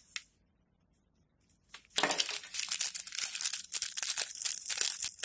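Small plastic bags of square diamond-painting drills crinkling and rustling as they are handled. The crinkling starts about two seconds in, after a short stretch of near silence.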